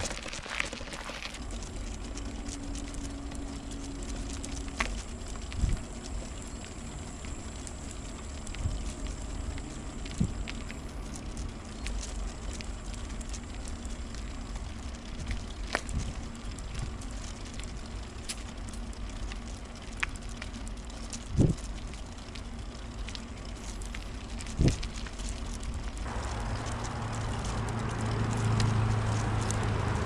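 A bicycle ride heard from inside a wicker front basket: a steady rumble from the ride with light rattling clicks and a few sharper knocks from bumps. A louder low drone comes in near the end.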